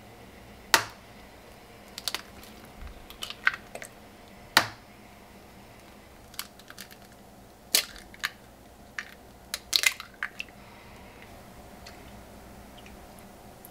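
Eggs tapped on the rim of a mixing bowl and their shells cracked open, one after another: a series of sharp, separate taps and cracks, a few in quick pairs. Near the end, milk is poured softly into the bowl.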